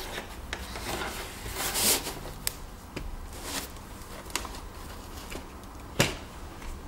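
Handling sounds of a bare LCD monitor panel and its cables on packing foam: light rustling and scattered small clicks, with one sharper click about six seconds in as a cable connector is pushed in at the panel's side.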